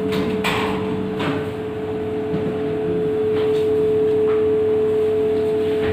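A steady hum on one pitch, with a few soft knocks in the first second or so.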